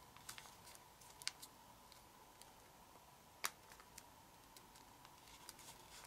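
Near silence with a few faint, crisp ticks of kami origami paper being folded and creased by fingers, the sharpest about three and a half seconds in, over a faint steady high whine.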